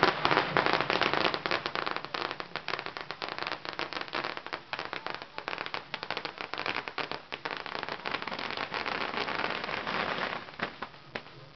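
A long string of firecrackers going off on the ground: a rapid, unbroken crackle of small bangs, loudest at the start and dying away near the end.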